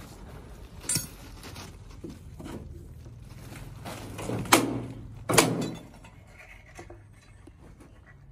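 Clay bricks knocking together as they are pulled loose from a collapsed brick wall: a light knock about a second in, then two loud, sharp knocks about a second apart in the middle. A low steady hum runs underneath.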